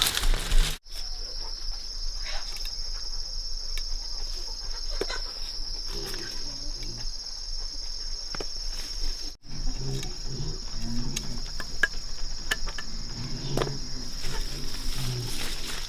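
A steady, high-pitched drone of insects calling, which breaks off for an instant about nine seconds in. A crinkling noise fills the first second, and faint knocks and low sounds sit under the drone.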